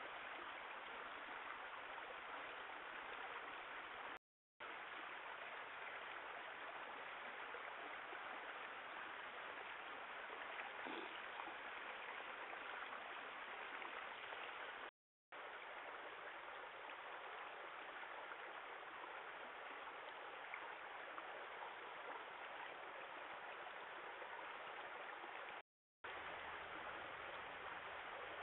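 Steady hiss from a trail camera's night recording, with no distinct animal sounds, broken three times by a short dead silence where separate clips are joined.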